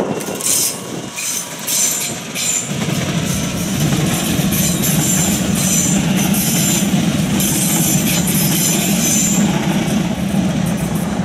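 DB class 442 Talent 2 electric multiple-unit trains on the line: short high wheel squeals and clicks in the first couple of seconds, then a steady low running hum that sets in about three seconds in as another unit approaches, with more high-pitched wheel squeal through the middle.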